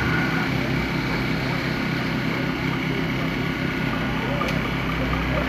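An engine running steadily with an even low drone, faint voices in the background.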